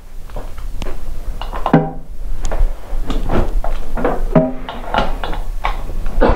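Steel hand tools clinking and clanking irregularly: a socket and ratchet wrench being fitted and worked on a nut on a snowmobile's pulley hub, with a few short ringing metal clanks.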